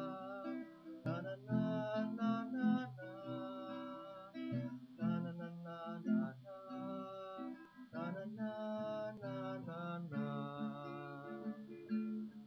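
Instrumental break of a song: acoustic guitar strumming chords, with a melody of held notes over it.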